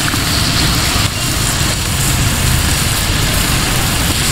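Onion, tomato and chilli masala sizzling in a large aluminium pot as yogurt is poured in and stirred with a metal slotted spatula, over a steady low rumble.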